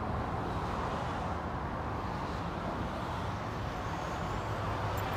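Steady hum of distant road traffic, with lorries and cars moving below.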